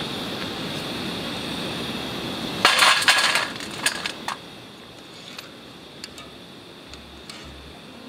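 A metal slotted frying spoon clatters against a steel plate as a batch of fried pakoras is tipped onto it. A dense burst of clinks comes about two and a half seconds in, followed by a few single clinks and lighter ticks. Before this there is a steady hiss.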